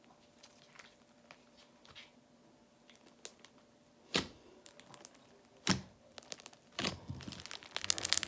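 Green slime mixed with foam balls being kneaded and squeezed by hand. It gives faint ticks at first, then sharp clicks and pops from about four seconds in, which turn into dense crackling near the end.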